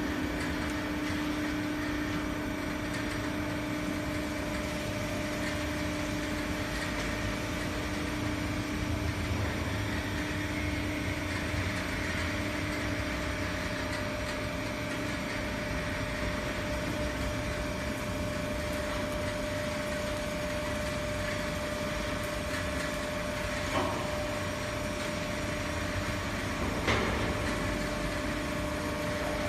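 Hydraulic vertical tyre baler running with a steady hum from its pump motor. Two short knocks come near the end.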